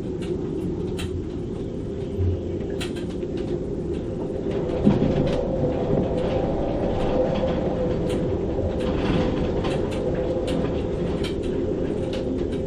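Storm wind gusting over 35 knots through a moored sailboat's rigging: a steady roar with a held, humming whistle, rising in a stronger gust about five seconds in. Scattered ticks and a few low knocks run through it.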